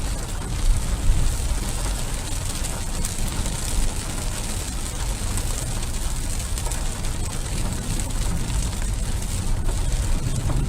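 Heavy rain falling steadily on a car, heard from inside the cabin, over the car's steady low rumble.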